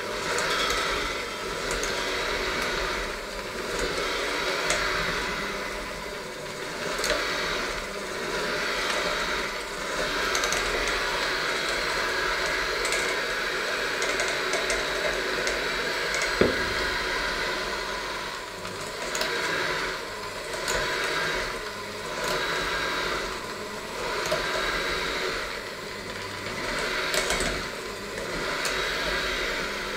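Electric hand mixer running, its beaters working a thick mixture in a stainless steel bowl; the motor's level swells and dips every second or two as the load changes. A single sharp knock about halfway through.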